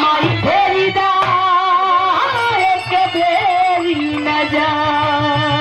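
A woman singing Bhojpuri birha folk song, drawing out long wavering notes, over steady held instrumental notes and a regular low drum beat.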